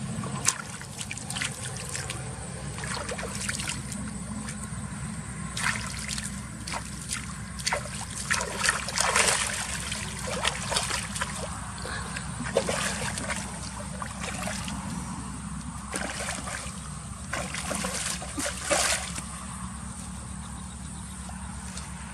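Water splashing and trickling in irregular bursts, over a steady low hum.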